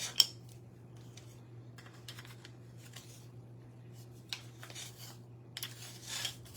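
Small craft pieces being handled on a tabletop: a sharp click just after the start, then a few light clicks and rustles, over a steady low hum.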